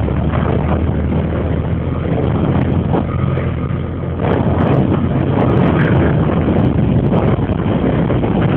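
Boat engine running steadily, with a low hum, growing somewhat louder about four seconds in.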